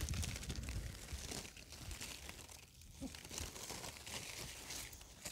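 Courgette plant leaves and stems rustling and crinkling faintly as they brush past, with a few light clicks.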